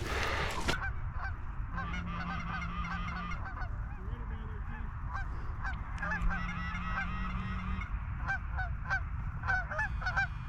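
A flock of Canada geese honking, many short calls overlapping and repeating throughout, with wind noise on the microphone in the first second.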